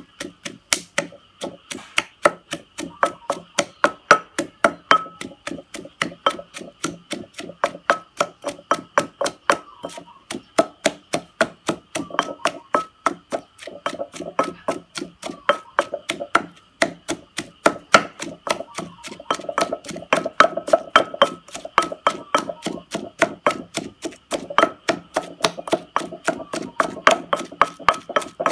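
Wooden pestle pounding shallots, garlic and chillies in a mortar, in quick, even strokes about three a second.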